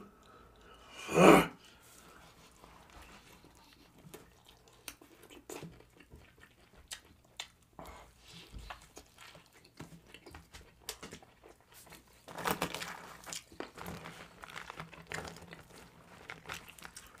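Close-miked eating: chewing and wet mouth noises with many small clicks as a burger and fries are eaten. One loud short sound a little over a second in, and a busier, louder spell of chewing from about twelve seconds in.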